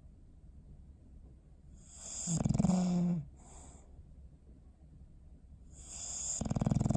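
English bulldog snoring in his sleep: two loud, rattling snores about four seconds apart, each lasting about a second, with a short wheezy breath just after the first.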